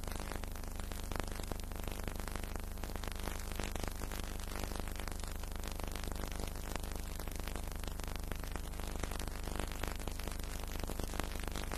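Steady hiss and electrical hum with a constant scatter of crackle, the noise of an old film soundtrack; no other sound stands out.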